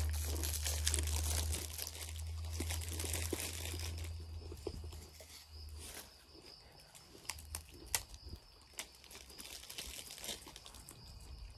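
Crinkling and rustling as plastic snack wrappers are handled, loudest in the first few seconds over a low rumble, then thinning out to scattered small clicks and taps.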